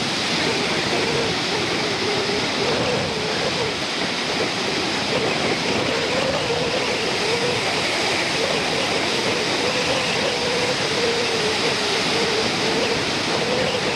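Rough, storm-driven sea surf breaking on a sandy beach: a steady, unbroken roar of waves, with a faint wavering hum running through it.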